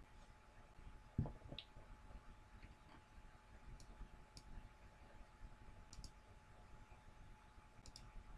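Faint computer mouse clicks, a few scattered over several seconds, with a double click near the end, over near-silent room tone; a low thump about a second in.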